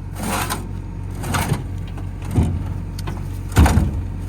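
Backhoe's diesel engine running steadily while wood knocks and clunks about five times, the loudest near the end.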